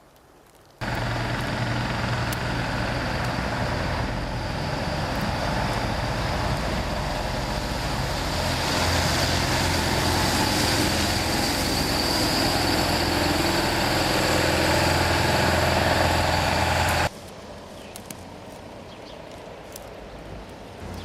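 A heavy truck's engine running close by: a steady low drone under broad noise. It starts abruptly about a second in and cuts off abruptly near the end.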